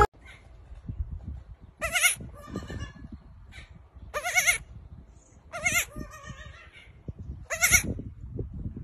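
A young goat kid bleating four times: short, high, wavering cries about every two seconds, over a faint low rumble.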